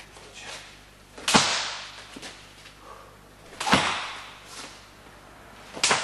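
Three sharp slapping hits from a close-range martial-arts exchange of strikes and blocks, spaced about two to two and a half seconds apart, each trailing off over about a second.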